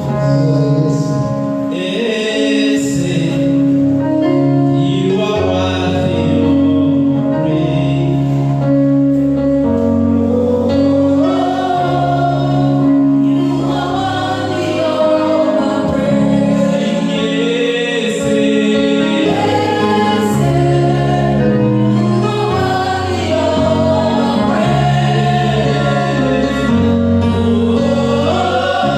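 Gospel music with a choir singing over held keyboard chords and a bass line.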